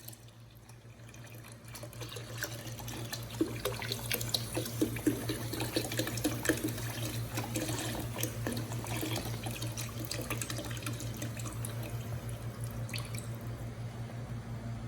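Water running from a kitchen tap into a sink, starting about two seconds in, with small clinks and splashes.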